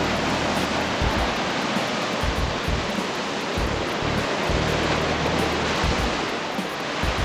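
Sea surf surging and churning in a rock hole on the shore, a steady loud rush of water that makes the water look as if it is boiling. Wind buffets the microphone in irregular low thumps.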